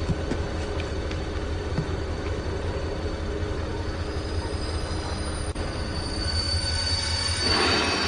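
Train noise in a rail yard: a steady low rumble with a thin, high-pitched wheel squeal that grows stronger about halfway through, and a rush of noise just before the end.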